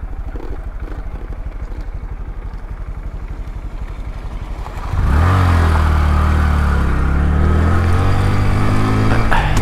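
Honda Grom's small single-cylinder engine running steadily at low revs, then opening up about halfway through, its pitch dipping and climbing as the bike pulls away. Wind and road noise grow as it picks up speed.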